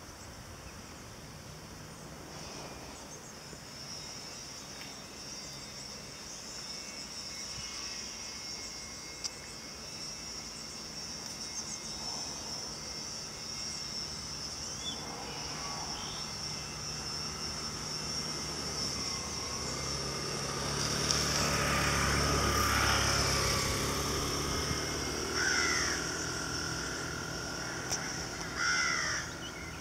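Outdoor ambience: a steady high-pitched insect chirring throughout, with a low engine drone that swells and fades, loudest a little past the middle. A few short bird calls come near the end.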